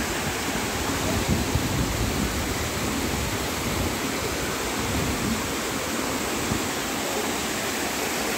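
Waterfall and rocky mountain stream cascading over boulders: a steady, unbroken rush of water.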